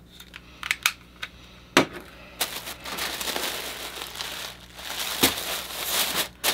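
Crinkling and rustling of a brown kraft paper mailer being handled and pressed, continuous through the second half, with a few light clicks and a single sharp knock before it.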